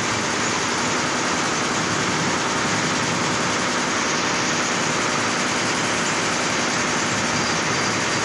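Steady, even mechanical running noise with no distinct knocks or clicks.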